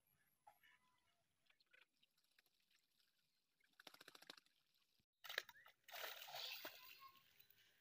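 A hooked fish splashing and thrashing at the water surface as it is hauled in on a bamboo pole line, starting about five seconds in and lasting about two seconds. A short run of rapid faint clicks comes just before it.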